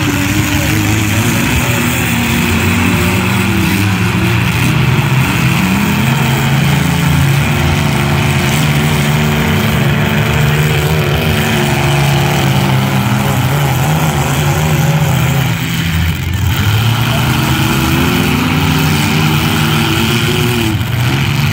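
Engines of several demolition-derby compact cars running and revving together, their pitch rising and falling as the cars accelerate and back off.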